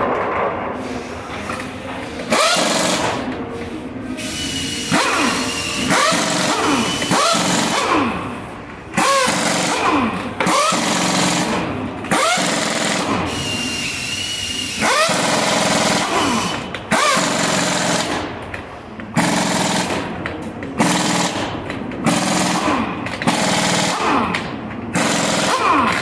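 Pneumatic impact wrench hammering in a series of short bursts, about a dozen, each starting suddenly and lasting a second or two, with the pitch rising and falling as it spins up and down.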